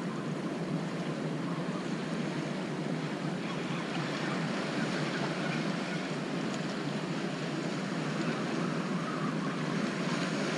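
Steady rush of ocean surf washing over shoreline rocks.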